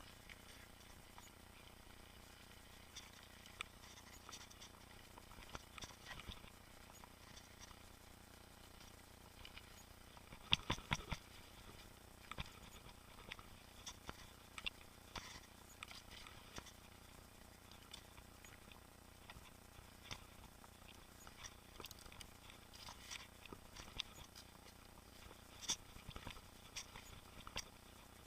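Boardman mountain bike rattling and clicking over a rough trail, with irregular small knocks throughout and a cluster of louder knocks about ten seconds in.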